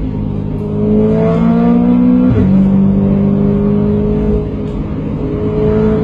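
Car engine accelerating, heard from inside the cabin: its note climbs, drops sharply with a gear change a little over two seconds in, then climbs again.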